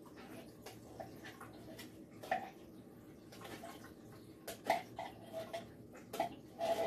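Faint, scattered light knocks and short clinks of kitchen containers and utensils being handled at a counter beside a slow cooker, with a closer cluster of clinks near the end.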